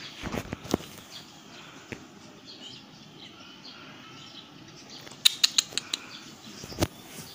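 Sharp clicks and taps: a few in the first second, a quick run of about six around five seconds in, and one more near the end.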